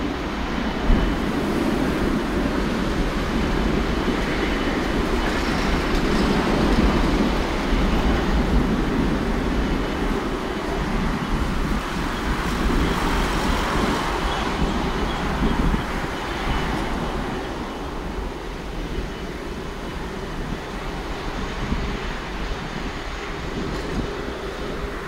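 Jet engines of an Air China Airbus widebody twin-jet running at the runway, a loud steady rush of engine noise with a faint high whine through the middle, slowly fading over the last several seconds.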